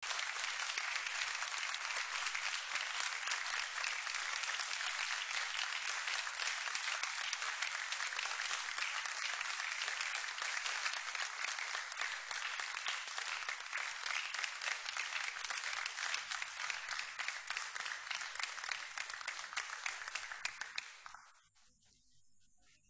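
Audience applauding steadily, a dense patter of many hands clapping, which dies away about twenty seconds in.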